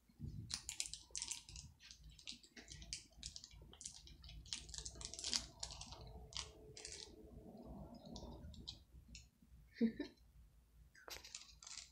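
Small plastic jelly portion packs being handled and peeled open by hand: a run of light, irregular crinkling clicks and ticks.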